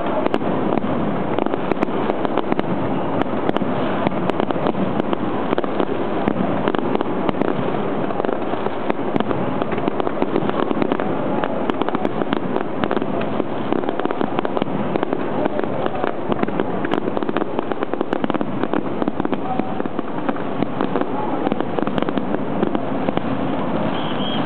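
Aerial firework shells bursting in rapid succession, a dense, continuous run of bangs and crackles.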